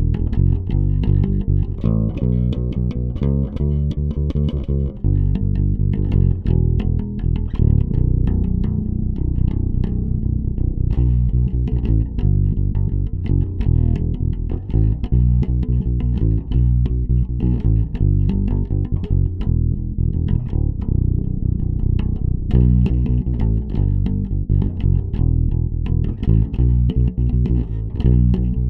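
Warwick Vampyre SN-5 bass guitar played direct, without an amp, playing a repeating riff in low plucked notes. It is on the bridge pickup with the active EQ's bass and treble turned all the way up.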